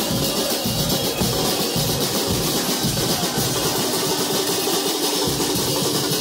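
Football supporters' drum section playing together: large bass drums (bombos) and snare drums beating a steady rhythm.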